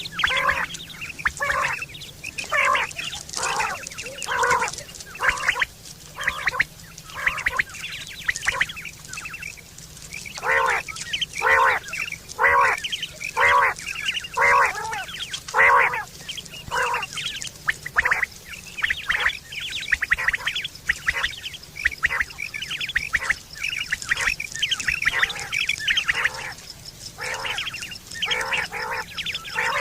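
Quail calling over and over: short pitched notes repeated in quick groups, with brief gaps between the groups.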